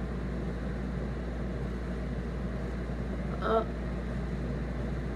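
Electric fan running with a steady low hum. A brief vocal sound comes about three and a half seconds in.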